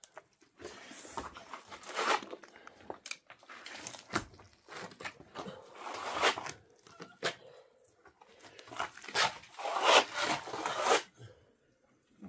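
Plastering trowel scraping and smearing wet plaster onto a concrete-block wall in a series of irregular rasping strokes, loudest near the end.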